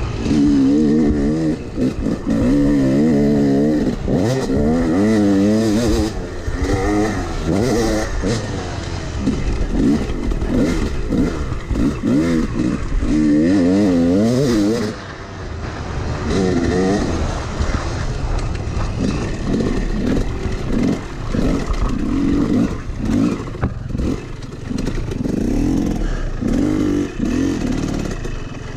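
Yamaha YZ250X two-stroke dirt bike engine being ridden hard, revving up and backing off again and again over a rough motocross track, with wind noise on the microphone. It eases off and quietens near the end as the bike slows.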